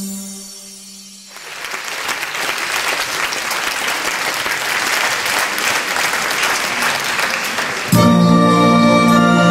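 A soft held music chord fades out, then audience applause rises and holds for about six seconds. Near the end the applause is cut off by loud music starting abruptly with held chords.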